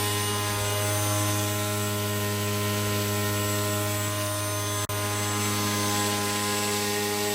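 RC airplane's motor and propeller droning steadily at a constant pitch, with a brief break about five seconds in.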